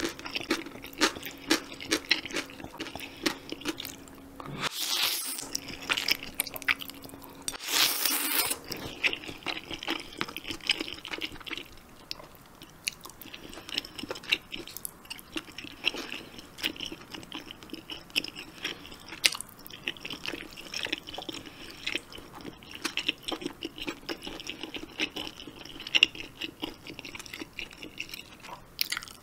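Close-up eating of spicy jjamppong noodle soup: chewing with many small wet mouth clicks, and two louder slurps of about a second each, around five and eight seconds in.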